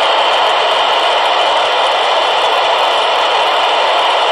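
Steady static hiss from a handheld ham radio's speaker, with no voice coming through between transmissions from the International Space Station.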